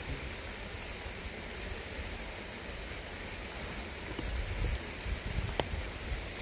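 Steady hiss of outdoor background noise, with low rustling thumps and a sharp click between about four and five and a half seconds in as a tank top is pulled up over the body.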